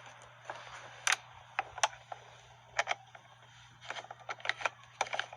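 Scattered sharp clicks of a hand tool driving T30 Torx screws snug: a few single clicks, then a quick run of clicks about four seconds in, over a low steady hum.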